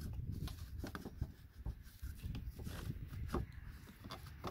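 Pleated cabin air filter scraping and rustling as it is worked into its slot under the windshield cowl, with a few light clicks and taps of the filter against the plastic.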